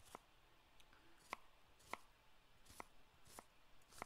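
Faint cooking sounds: about six sharp, irregularly spaced taps of a kitchen utensil, typical of a knife on a cutting board.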